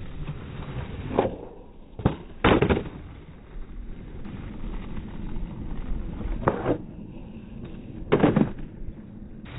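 Skateboard wheels rolling on rough asphalt, broken by several sharp clacks of the board: tail pops and landings of flat-ground tricks. The loudest clacks come about two to three seconds in.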